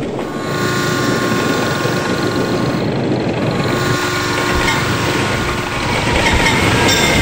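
An approaching passenger train sounds its horn in two long blasts, the first lasting about two and a half seconds and the second about two seconds, over a loud steady rumble of the train and the truck at the level crossing.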